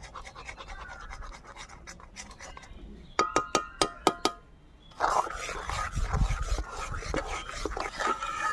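Metal ladle stirring thick raw-mango pulp in an aluminium kadai, scraping against the pan. A quick run of ringing metallic clinks comes about three seconds in, and heavier, continuous scraping follows from about five seconds.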